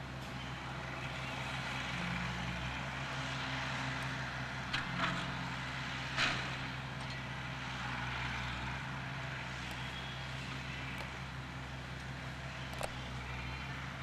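1953 Oliver 88's six-cylinder diesel engine running steadily as the tractor is driven. A few short, sharp knocks come about five and six seconds in, and once more near the end.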